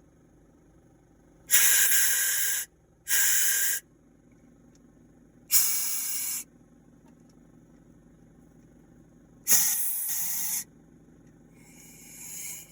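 Four separate bursts of hissing, each about a second long and sudden at the start, then a softer hiss swelling near the end, over a faint low hum.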